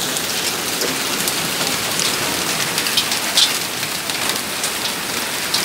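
Heavy rain with hail pouring down: a steady hiss of rain with sharp ticks of hailstones striking, two louder ones about two and three and a half seconds in.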